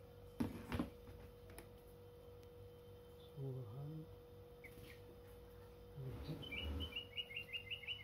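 Tame sooty-headed bulbul (kutilang) giving a short high call about halfway through, then a rapid run of short chirps near the end. Two sharp clicks come just under a second in.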